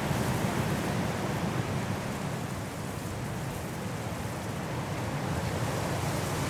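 High winds blowing through trees in a mountain snowstorm: a steady rushing with a deep low rumble that eases slightly midway and builds again.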